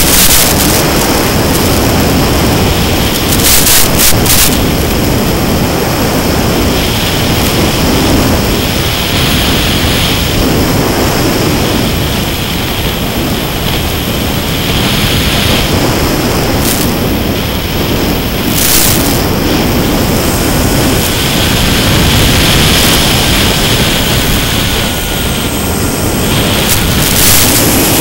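Mini Skywalker RC plane in flight, heard through its onboard FPV camera: a steady loud rush of airflow and the electric pusher motor and propeller. Short crackles of radio interference come a few times, the last near the end, as the video link breaks up.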